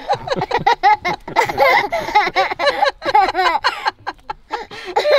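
A toddler's excited squeals and laughter, with adults' voices and laughter around it.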